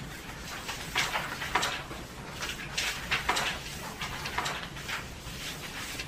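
Pencil writing on paper: irregular short scratching strokes, several a second, with some paper rustling.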